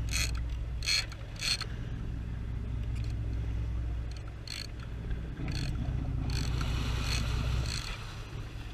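Large conventional tuna reel being cranked under heavy load, its gears grinding and clicking in short repeated bursts as line is wound in against a hard-bent rod on a hooked tuna.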